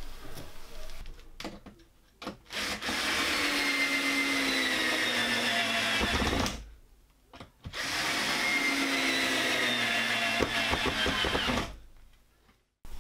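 Cordless drill running into a wooden door frame in two long runs of about four seconds each, with a brief trigger blip before the first; its whine sinks gradually in pitch during each run as the motor labours under load.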